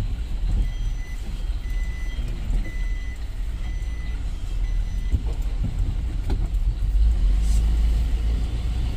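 Truck engine running, heard from inside the cab, with a repeated high electronic beep sounding on and off through the first five seconds or so.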